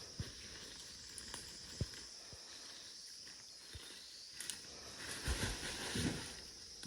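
Forest ambience: a steady high insect drone, with scattered light knocks and rustling like footsteps in undergrowth, a denser patch of rustling about five seconds in, and a sharp knock at the very end.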